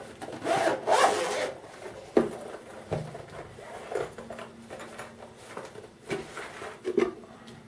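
Zipper of a semi-rigid gimbal carrying case being pulled open in several strokes, with the case rubbing and shifting on the table. The loudest zipping comes about a second in, followed by softer scrapes and a few light knocks.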